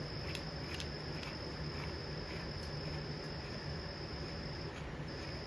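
Steady high-pitched whine that breaks off briefly near the end, over a low steady hum, with a few faint light clicks from handling the metal flywheel puller.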